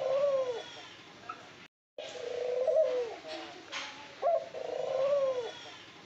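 White doves cooing in their cage: soft rolling coos in repeated phrases. The sound cuts out completely for a moment about two seconds in.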